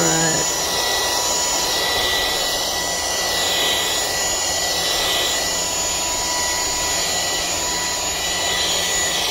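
Small handheld vacuum running steadily, a rush of air with a high motor whine, pulled across a roof vent fan's screen to clear dog hair. The rush swells and fades as the nozzle moves over the screen.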